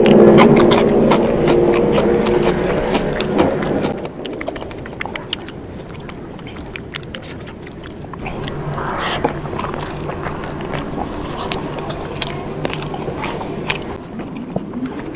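A person chewing and biting a mouthful of rice and side dishes, with small wet mouth clicks and smacks. A louder pitched sound runs over the first four seconds and then stops.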